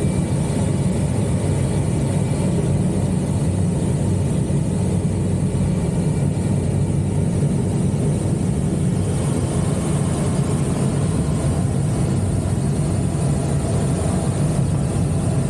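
Steady airflow noise in the cockpit of an ASK 21 glider in flight: an even low rumble with a high hiss above it.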